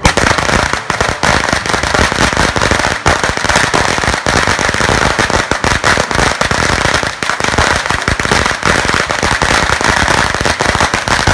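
A long string of firecrackers going off in a rapid, unbroken chain of loud bangs that starts suddenly.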